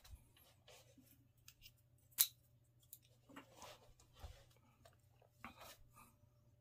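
Faint handling sounds from cleaning a small metal rod ring: scattered light clicks and short scrapes, with one sharp click about two seconds in.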